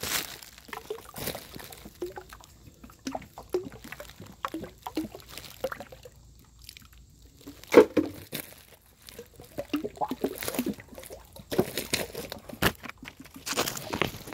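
Dish soap glugging and splashing out of a plastic bottle into a bucket of salt water, in short irregular gulps with a brief lull about halfway. Rustles and knocks of fingers handling the phone right at the microphone.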